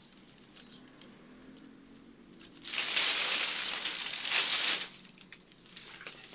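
White woven plastic sacking and crumbled debris rustling and crunching as they are pulled out of an opened cement tomb niche, loudest for about two seconds in the middle, with smaller rustles and clicks around it.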